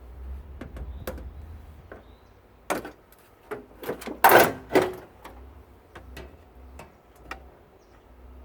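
Scattered clicks and knocks of tools and metal parts being handled while taking apart a tankless water heater, with a short, louder clatter about halfway through.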